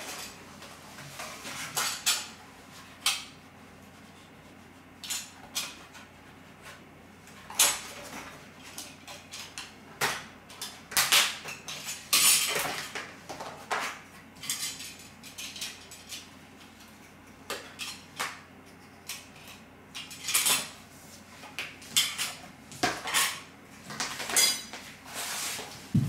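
Utility knife cutting a thin yellow sheet on a vinyl floor, with irregular scrapes, clicks and taps as the cut strips are handled and set down.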